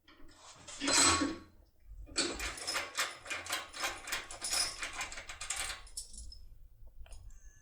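Small metal parts, keys among them, clinking and rattling as they are handled: one loud ringing clink about a second in, then a quick run of light metallic clicks and rattles for about four seconds.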